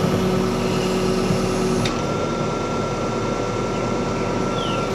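Backhoe loader's diesel engine running steadily, heard from the cab, as the hydraulic boom and stick move; a higher steady whine joins about two seconds in, just after a single click.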